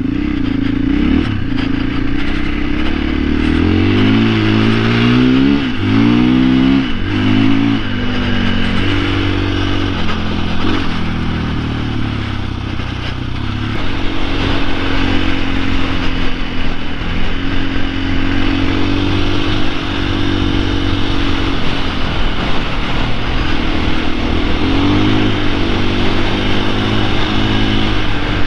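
Off-road motorcycle engine heard from the bike itself, revving up and down several times early on, then running at a steadier pitch with steps between gears, and revving again near the end.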